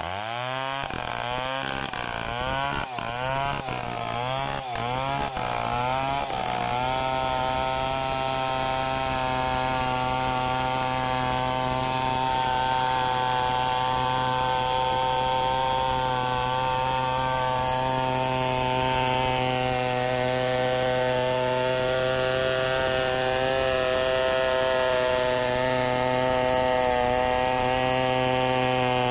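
Two-stroke chainsaw blipped up and down about once a second for the first six seconds, then held at full throttle and running steadily under load as it rips lengthwise through a coconut log.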